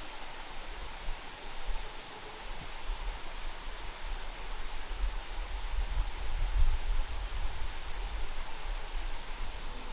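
Insects calling in a steady high-pitched pulsing, several pulses a second, over an even outdoor hiss, with a low uneven rumble underneath.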